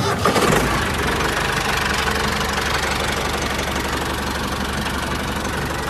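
Diesel tractor engine idling steadily with a knocking chug.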